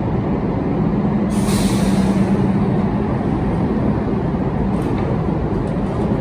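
Budd R32 subway train at a station platform, with a steady rumble and low hum and a burst of air hiss about a second in that lasts about a second.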